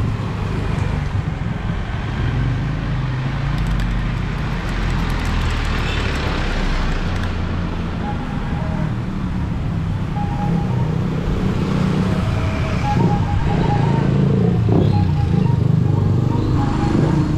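Street traffic: vehicle engines running and passing in a continuous low rumble that grows louder twice as vehicles go by.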